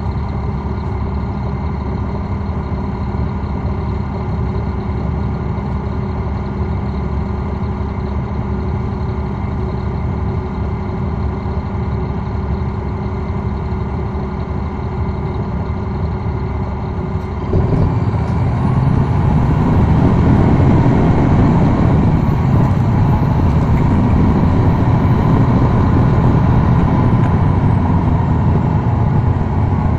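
Caterpillar C13 ACERT diesel engine of a city bus, heard from inside the rear of the bus, running steadily at low speed, then a little over halfway through throttling up and running much louder under load, with a faint high whistle that rises and then holds over it.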